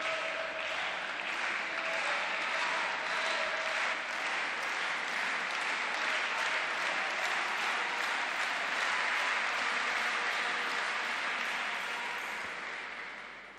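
Spectators applauding steadily after a table tennis point, the clapping fading out near the end.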